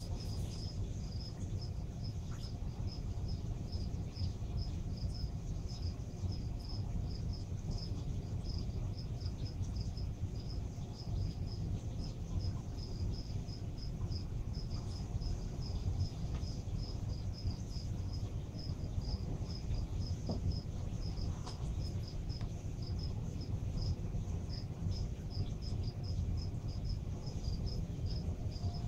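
Steady low hum and rumble of a reef aquarium's running equipment and water, with a faint high chirp repeating evenly about three to four times a second.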